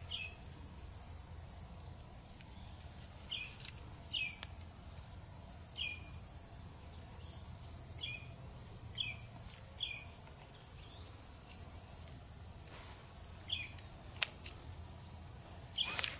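A bird calling with short, falling chirps, about ten of them at uneven intervals, over steady low background noise. A single sharp click comes about fourteen seconds in.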